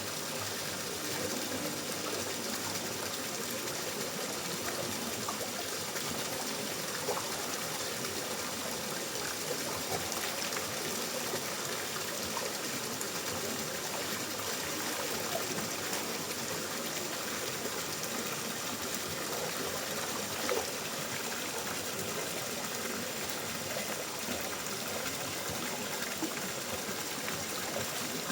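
Water flowing steadily in an even rush, with a few faint ticks now and then.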